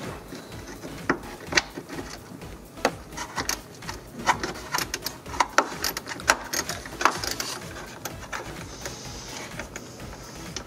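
Hand ratchet clicking in short, irregular runs as a radiator fan mounting bolt is turned out.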